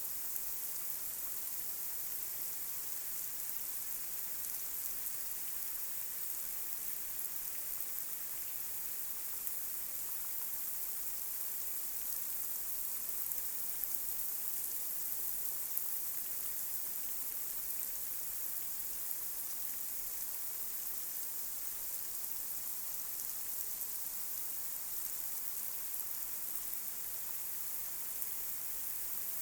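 Light rain falling steadily on a street, an even high hiss with faint scattered drop ticks.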